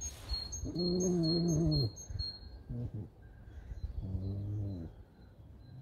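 Pet fox whining in drawn-out, low, wavering moans: two about a second long with a short one between them.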